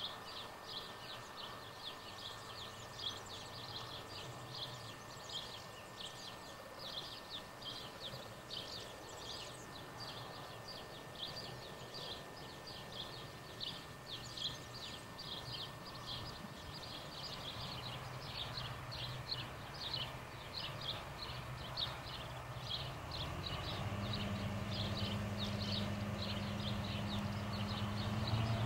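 Diesel engine drone of an approaching DR class 228 (V 180) twin-engined diesel locomotive, growing louder over the last few seconds. Throughout, a steady rhythmic high chirping from an insect or bird repeats two or three times a second.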